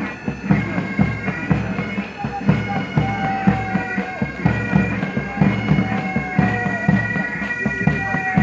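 Bagpipes playing a march tune over a steady drone, with regular drum beats underneath.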